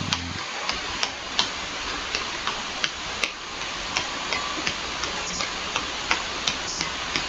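Irregular clicks of a computer mouse and keyboard, a few a second, over a steady hiss.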